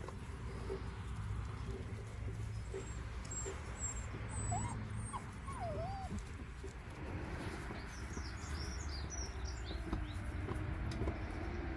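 A puppy whimpers, a few short rising-and-falling cries about four to six seconds in, with birds chirping faintly and a steady low rumble throughout.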